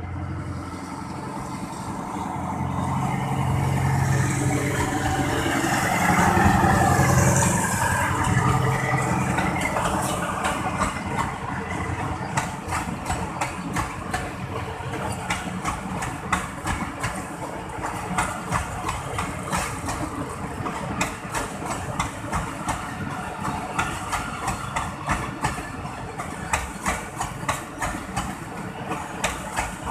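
Pakistan Railways ZCU-20 diesel-electric locomotive on a departing passenger train, its engine running loudest as it passes, about four to eight seconds in. Then the passenger coaches roll by, their wheels clacking in a steady rhythm over the rail joints.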